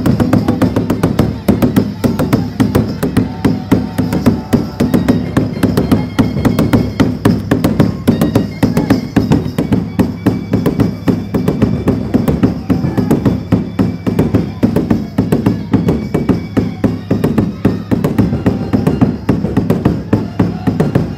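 Fast dhamal music: rapid, steady drum beats driving on without a pause, with sustained higher-pitched tones over them.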